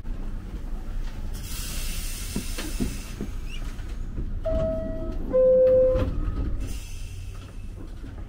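New York City subway train standing at the platform with a low rumble and hissing air, sounding a two-note falling chime, the signal that the doors are closing.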